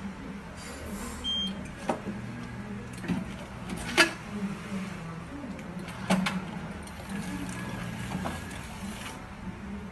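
Table-top semi-automatic tray sealer running a sealing cycle: a motor hum and a hiss run under a series of mechanical clicks and clunks as the lunch-box tray is drawn in, heat-sealed with film and pushed back out. The loudest clunk comes about four seconds in, and the hiss cuts off shortly before the end.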